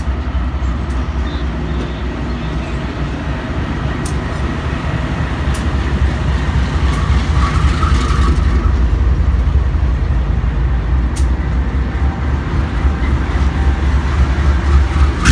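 Diesel-electric freight locomotives passing directly beneath, their engines running with a deep, steady rumble that grows louder as the units come under. A few sharp clicks are heard along the way.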